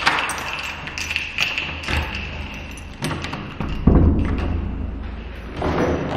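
Keys clicking and turning in a door lock, then the door's metal lever handle worked and the door opened, with several thumps as a cardboard box knocks against the door and wall. The loudest thump comes about four seconds in.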